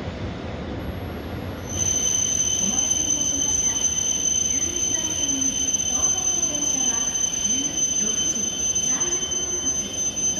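E7 series Shinkansen braking to a stop at the platform: a low rumble, then about two seconds in a steady, high-pitched brake squeal of several pure tones sets in and holds, easing near the end.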